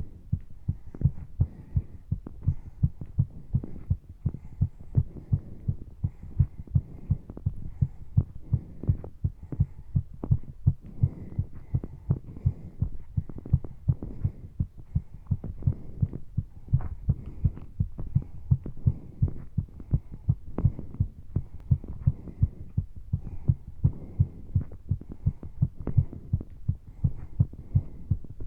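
A human heart pounding fast and hard from exercise, with an even, unbroken rhythm of low thumps. Breathing is audible underneath the beats.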